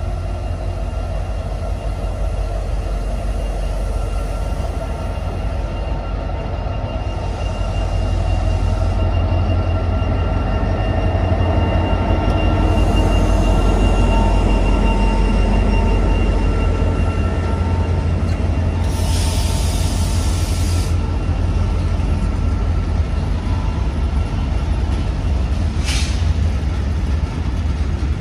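Freight train hauled by a Medway class 335 diesel locomotive approaching and passing close by: a heavy low engine rumble that grows louder toward the middle as the locomotive goes past, then the wagons rolling by with a thin, steady high squeal from the wheels. A hiss lasting about two seconds comes past the midpoint, and there is a single sharp knock near the end.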